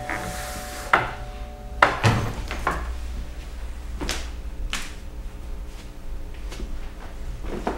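A series of sharp knocks at uneven intervals over a steady low rumble, with a held two-note ringing tone fading out in the first two seconds.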